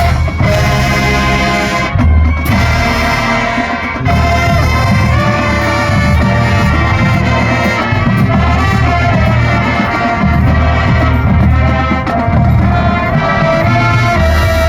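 High school marching band playing a Christmas medley, with brass carrying the tune over a pulsing low drum beat.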